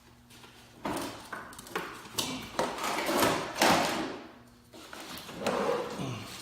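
Knocks, clunks and scraping of a lawn mower being tipped back upright and handled, a few sharp knocks in the first two seconds, then longer rough scraping.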